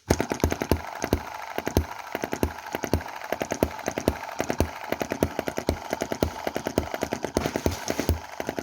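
Small single-cylinder hit-and-miss model gasoline engine (Chinese EM2/M19) running, a fast, uneven train of sharp firing knocks over its mechanical clatter. Its valve timing has just been shifted one cog tooth to cure misfires; the owner hears less misfire but possibly less power.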